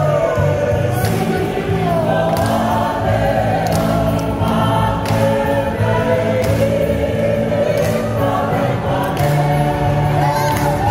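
A choir of mostly women's voices singing together, several melody lines at once that glide in pitch over steady low notes, picked up by stage microphones.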